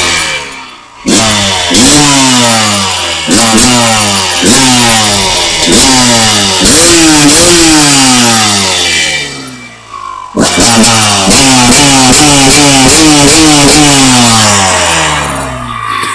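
Honda CR250R's single-cylinder two-stroke engine revving in repeated bursts, each a sudden jump in revs that falls away over a second or so. The run of bursts dies down briefly about two-thirds of the way through, then starts again and fades near the end.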